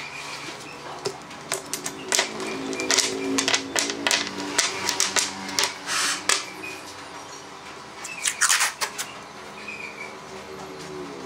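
Small wooden pieces clicking and knocking as they are handled and set down on a wooden workbench panel. About eight seconds in comes a quick run of tearing strokes as masking tape is pulled off its roll. Soft background music plays underneath.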